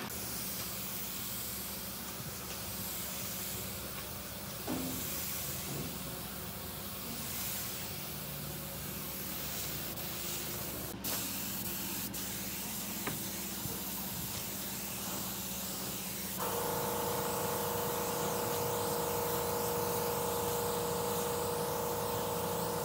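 Gravity-feed compressed-air spray gun hissing steadily as it sprays a finish coat onto a wooden table. A steady pitched tone joins about 16 seconds in.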